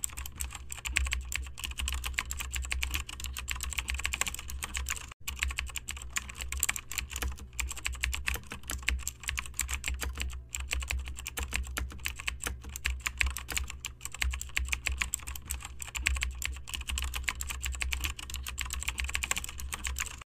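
Fast, continuous typing on a computer keyboard, about six keystrokes a second, over a steady low hum. There is a brief break about five seconds in.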